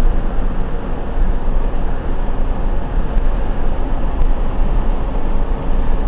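Steady rumble of a car driving along a road, heard from inside the cabin: even road and engine noise, heaviest in the low end, without a break.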